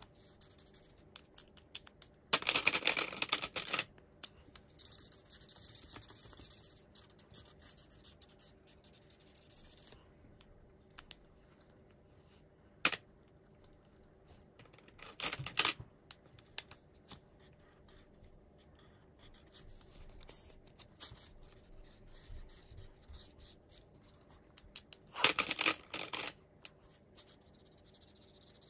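Marker tip scratching across paper in several short spells of scribbling as an area is coloured in, with quiet gaps between them and a single sharp click in the middle.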